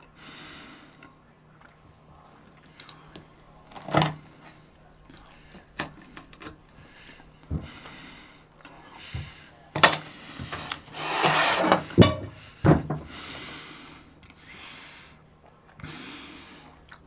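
Fork clinking and knocking against a dinner plate several times, the loudest knocks in the second half, with soft breathing in between.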